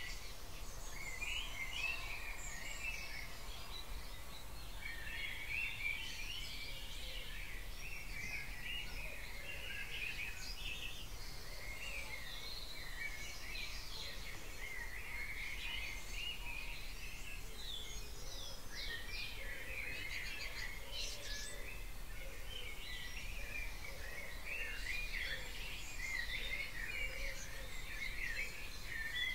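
Dawn chorus of garden songbirds: many birds singing at once in a continuous, overlapping tangle of chirps, warbles and trills, over a steady low background hum.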